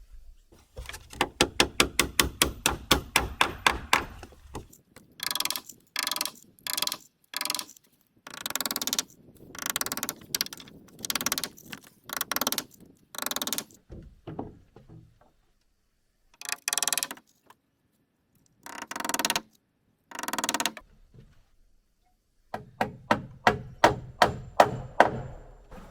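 Hurricane ties being fastened to wooden rafters: two runs of rapid, evenly spaced impacts, about eight a second, at the start and again near the end, with a string of short bursts in between.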